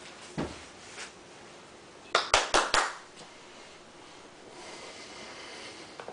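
A quick run of about five sharp hand claps a little after two seconds in, with a couple of softer knocks before them. Near the end comes a faint rustle as a pit bull puppy comes up close with a plush toy.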